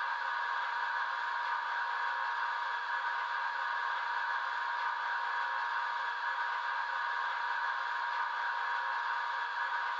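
Sound decoder in a model Class 46 diesel locomotive playing a recorded Sulzer diesel engine idling steadily through a small double iPhone speaker, which gives a thin, even hum with little bass.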